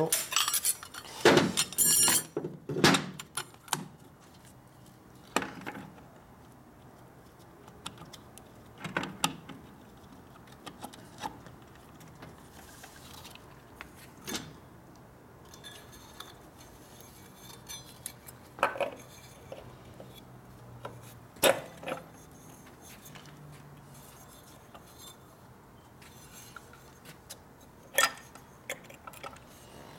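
Metal parts and hand tools clinking and knocking as a belt primary drive is assembled: a cluster of clattering in the first few seconds, then scattered single knocks and clinks.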